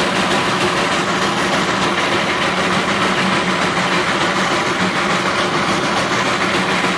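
Darjeeling Himalayan Railway steam locomotive on the move, heard from the front of the engine: a loud, steady, dense noise of the running locomotive on the track, with a faint steady hum underneath.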